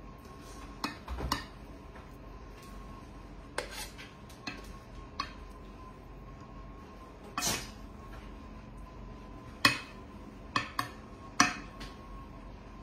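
A table knife clinking and scraping against a ceramic baking dish and plate as cream cheese is dolloped onto chicken breasts. There are about ten scattered sharp clinks, the loudest two near the end.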